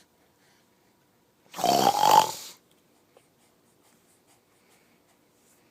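A person snoring once, loudly, for about a second, about a second and a half in; the rasping snore rises slightly in pitch toward its end.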